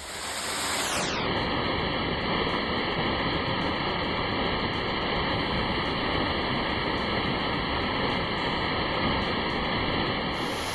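Steady, even rushing of a waterfall, starting abruptly.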